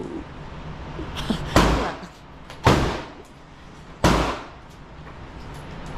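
Three gunshots, each a sharp crack with a short ringing tail, spaced a second or so apart.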